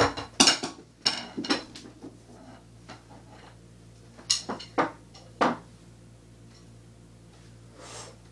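Wooden drumsticks knocking together in short, sharp clicks: a quick cluster in the first second and a half, then three more between about four and five and a half seconds in.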